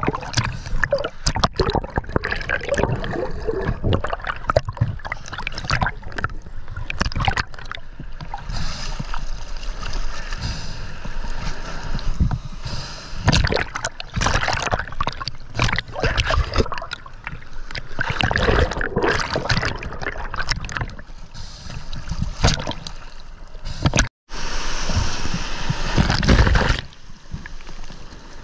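Sea water splashing, sloshing and gurgling around a camera that dips in and out of the surface in choppy swell. It comes as an irregular run of short splashes and bubbling, with no steady rhythm.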